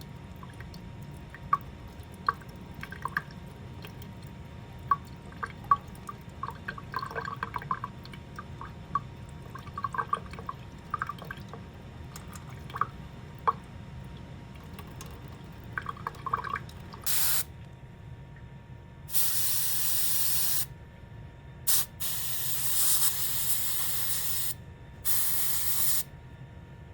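Light clicks and taps of dental instruments, then from about two-thirds of the way in, five hissing bursts of a dental air-water syringe spraying, the longest about two seconds.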